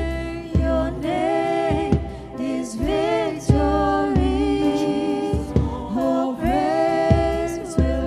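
Church worship singing: sung notes with vibrato over a low, evenly paced beat of accompaniment.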